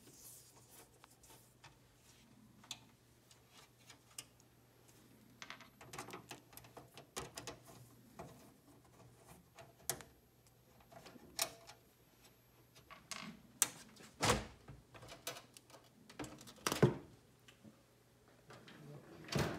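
Scattered light clicks and taps of screws being taken out of a gaming PC's case, with a few louder knocks in the last third.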